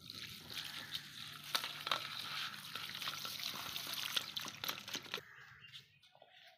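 Water poured from a steel cup into a steel bowl of cauliflower florets, splashing as hands rub and turn the florets to wash them, with small knocks against the bowl. The splashing stops abruptly about five seconds in.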